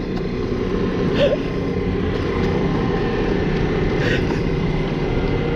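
Electric kayak motor running steadily under way, a constant drone with a thin high whine, mixed with wind and water rush on the camera.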